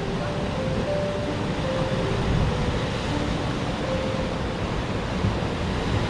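Sea surf surging and breaking against basalt column cliffs, a steady rushing wash of water. A few faint background music notes sit over it.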